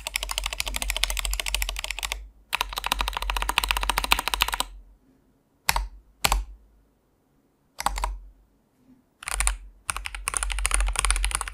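Typing on a Tester84 custom mechanical keyboard with factory-lubed Gateron Milky linear switches, unmodded: two fast runs of keystrokes, then a pause with a few single key presses, then another fast run near the end.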